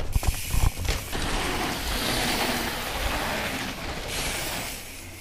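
Mountain bike coasting on dirt with its freehub ratchet buzzing and its tyres rolling. There are a few knocks from bumps in the first second, and the sound fades near the end.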